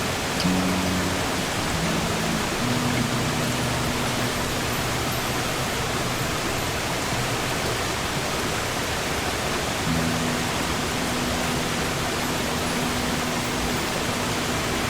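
Steady wash of sea surf, an even rushing noise, with a few soft, low acoustic guitar notes held beneath it in the first few seconds and again past the middle.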